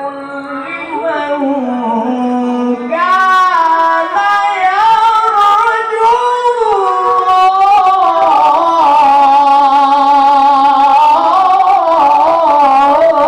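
A male qari reciting the Quran in the melodic tilawah style with a high voice, holding long ornamented notes that waver up and down. The voice grows louder and climbs higher about three seconds in.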